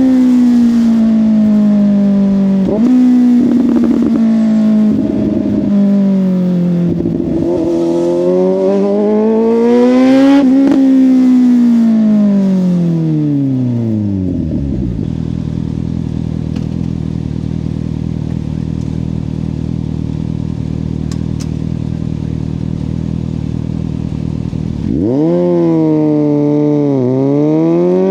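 Suzuki GSX-S750 inline-four through a Yoshimura exhaust under way, engine speed easing and rising with a few short crackles. It slows to a steady idle about halfway through, then revs up and pulls away sharply near the end.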